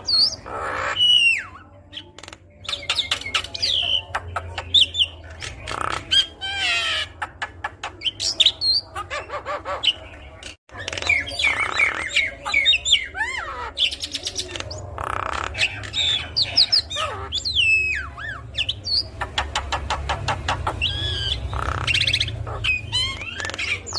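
Jalak kebo (Javan myna) singing a long, varied song of gliding whistles, quick rattling runs and harsh squawks.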